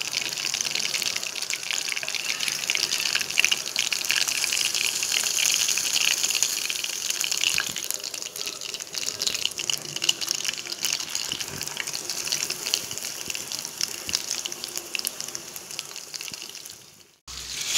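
Anchovies deep-frying in hot oil: a steady, dense crackling sizzle that drops out briefly near the end.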